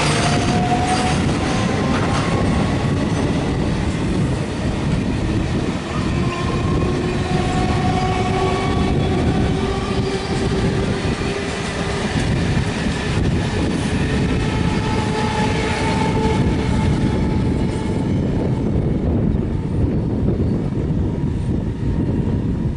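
A train rolling past close by: steady, loud wheel-on-rail noise with clickety-clack over the rail joints and faint wheel squeals that come and go. The high hiss thins out after about 18 seconds.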